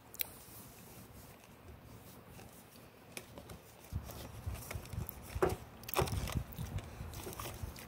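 Faint close-up chewing of food with a few soft mouth clicks, and wind buffeting the microphone as a low rumble from about four seconds in.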